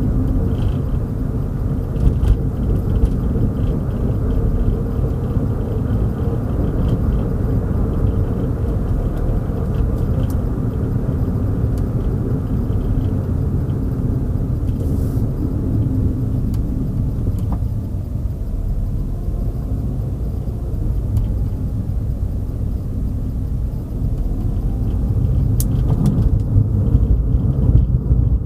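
Car driving along: a steady low rumble of road and engine noise that eases a little midway and swells again near the end.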